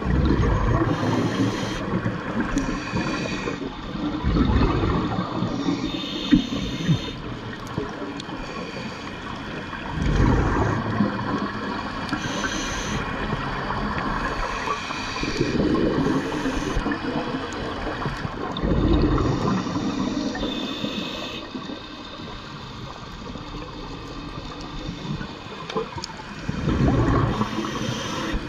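Scuba diver breathing through a regulator underwater: a short hiss on each inhalation and a rush of bubbling exhaust every few seconds, about six breaths in all.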